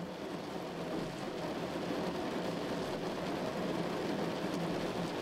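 Steady rain falling, a continuous even hiss of raindrops.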